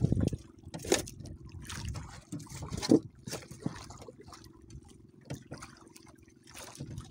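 Sea water splashing and lapping against the hull of a small wooden outrigger boat, with a few sharp splashes or knocks in the first three seconds.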